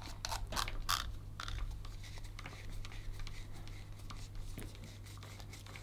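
Faint scratching and clicking of hands screwing a plastic cable gland nut onto an IP67 waterproof RJ45 coupler, the clicks thickest in the first second and a half, over a steady low hum.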